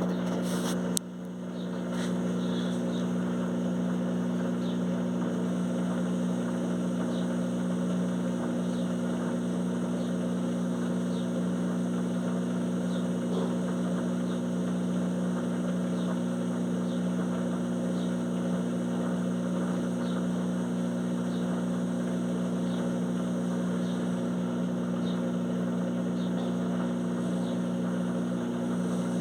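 Electrolux washing machine spinning a duvet, a steady loud hum with faint regular ticks; the level dips briefly about a second in. The spin is noisy, which the owner takes to be normal.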